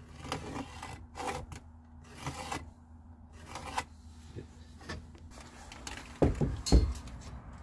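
Hands working with a plywood board and small hardware against a metal frame: a string of rustles and clicks, then two heavy low thumps a little after six seconds in.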